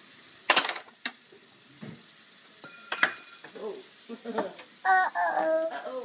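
Metal cutlery clattering and clinking as a toddler handles a fistful of forks and spoons and puts them away in a kitchen drawer; the loudest clatter comes about half a second in, with single clinks after. A small child's voice sounds briefly near the end.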